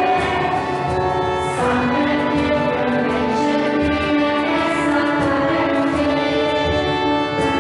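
Music: children singing a carol with instruments accompanying, in long held notes.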